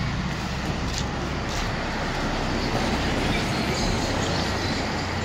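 Traffic noise: a motor vehicle passing on the street, a steady noise heaviest in the low end.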